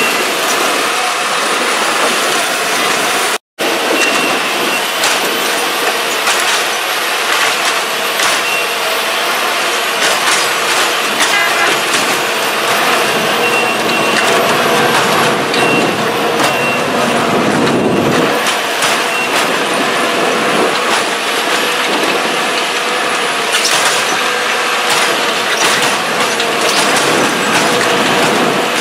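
A hydraulic railroad tie inserter running steadily, with a whine over its engine. Its head clatters against ballast and wood as it pushes a new wooden crosstie in under the rail. The sound cuts out for an instant about three seconds in.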